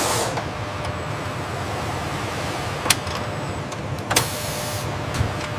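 Steady mechanical whirring hum on the engine-assembly line, broken twice, about three and four seconds in, by a sharp click: torque wrenches clicking off as the V12 engine mounts are brought to their set torque.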